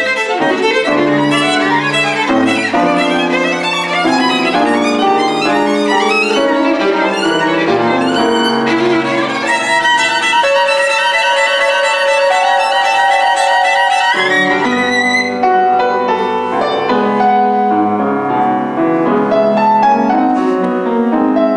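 Violin playing a classical piece with piano accompaniment: busy passages of quick notes, a long held high note with vibrato about halfway through, then a quick upward run into more rapid playing.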